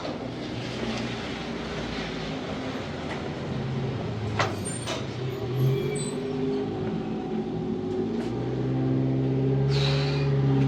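A motor vehicle's engine running steadily, its note shifting a little and growing louder near the end, with a couple of sharp knocks about four and a half seconds in.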